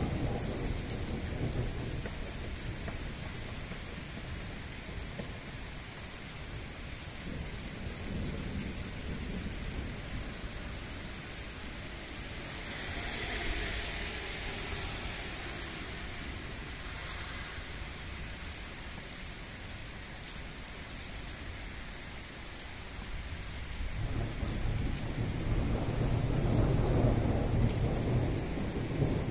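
Steady rain falling and splashing on wet pavement during a thunderstorm, with thunder rumbling. About three quarters of the way in, a louder, deeper rumble of thunder sets in.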